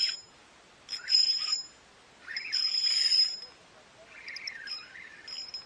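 Fishing reel cranked in short bursts, four in all, a whirring with a steady high whine, as a lure is retrieved.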